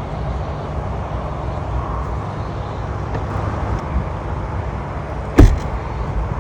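Rimac Nevera electric hypercar under way, its road and tyre noise a steady low rumble with no engine note. One sharp knock comes about five seconds in.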